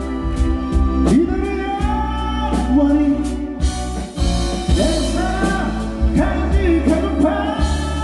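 A male vocalist singing live into a handheld microphone over a band with electric guitar and keyboard; his sung notes bend and waver in pitch above a steady low backing.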